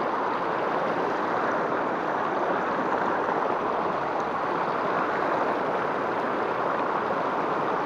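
River water rushing over rocks in shallow rapids: a steady, even rush.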